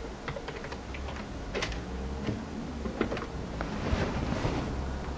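Typing on a computer keyboard, irregular clicks of keys being struck.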